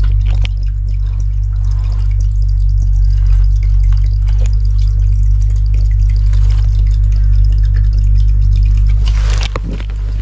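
Water dripping and trickling inside a concrete culvert, over a steady low rumble. A short burst of noise comes about nine seconds in.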